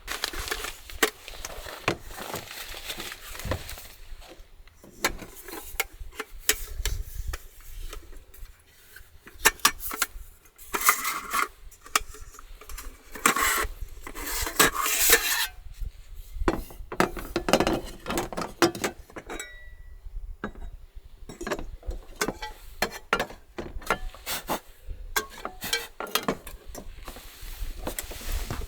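Cookware and utensils being handled: a run of irregular clinks, knocks and clatters, with a few longer rustling or scraping stretches near the middle.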